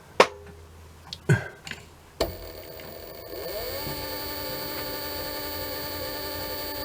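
A few light clicks and knocks, then about two seconds in a small lathe motor switches on. Its pitch rises briefly as it comes up to speed, then it runs steadily with a hum and whine, turning the escape wheel arbor for drilling a 0.4 mm hole for a new pivot.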